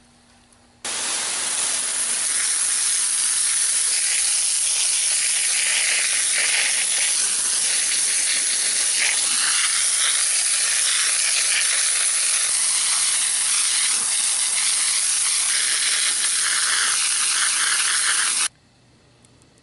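Jet of water hitting an aluminium anthill cast and the soil packed around it, washing the dirt out: a steady, loud hiss that starts abruptly about a second in and cuts off suddenly near the end.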